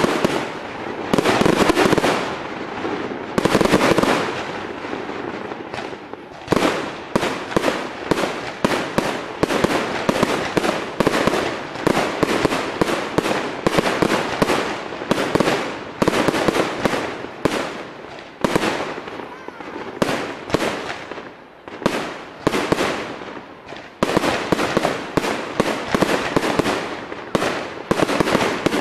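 Many fireworks going off at once: a dense, rapid crackle of bangs and cracks that never lets up, with heavier booms near the start and a few seconds in.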